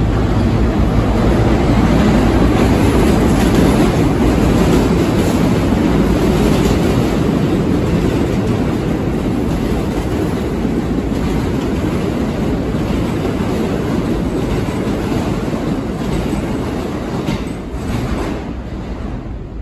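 Express subway train running through the station without stopping: a steady rumble and clatter of steel wheels on rail, loudest in the first few seconds and fading as the last cars pass near the end.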